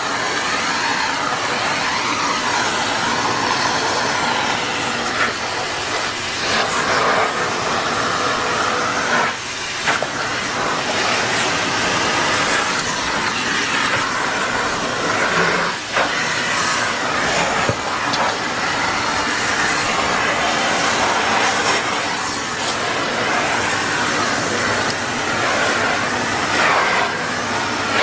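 Vacuum cleaner running steadily, with a couple of brief dips in its sound.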